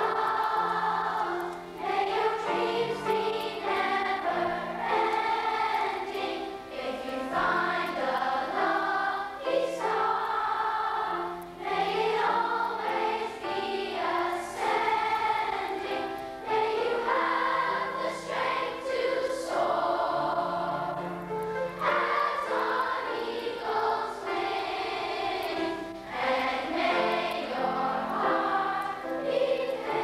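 A children's choir singing, with many voices holding long notes and brief breaths between phrases.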